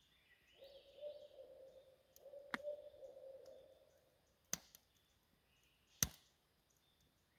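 Faint forest ambience with distant birds chirping. A steady hum runs for about three seconds near the start, and there are three sharp clicks in the second half, the last the loudest.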